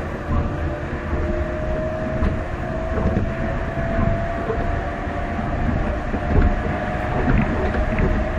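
Yamaman Yukarigaoka Line rubber-tyred people-mover train running along its concrete guideway, heard from the cab: a steady rumble from the running gear, with a whine that rises slowly in pitch and a few light knocks.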